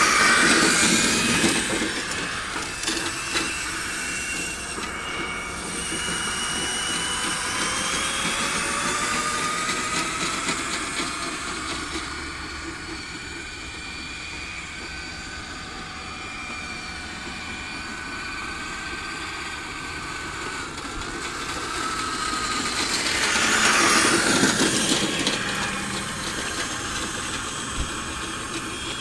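Traxxas E-Maxx electric RC monster truck whining, its pitch rising and falling with speed, over the rumble of its tyres and the wagon's wheels rolling on asphalt as it tows a Radio Flyer wagon. It is loudest at the start and again about 24 seconds in, as it passes close by.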